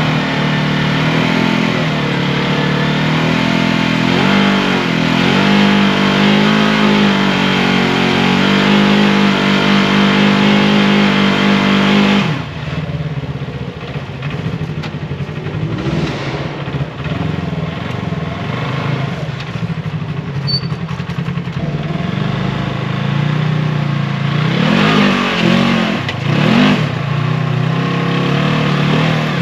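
Polaris RZR XP 1000 side-by-side's twin-cylinder engine running hard under load, its pitch wavering up and down, then dropping suddenly to a lower, quieter running about twelve seconds in. A few short revs rise and fall in the second half.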